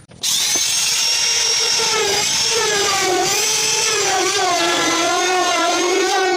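Handheld electric power tool running on wood, its motor pitch wavering up and down as the load changes. It starts abruptly just after the beginning.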